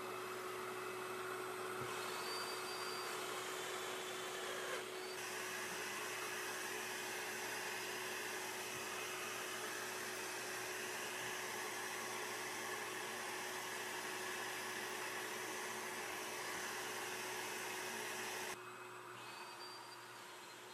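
Shop vacuum running steadily as dust extraction for a Festool Domino joiner cutting mortises, with a constant low hum under it. It drops off sharply about 18 seconds in, leaving a quieter hum.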